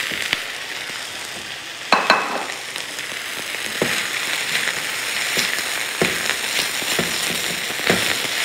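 Chicken pieces sizzling in hot oil in a frying pan: a steady sizzle, with a louder knock about two seconds in and then short knocks about once a second as a silicone spatula stirs and scrapes the pieces around the pan.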